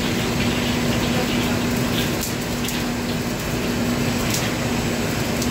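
Steady rushing noise of a commercial wok range and its exhaust hood, with a steady hum underneath. A few sharp clinks of a metal ladle striking the wok.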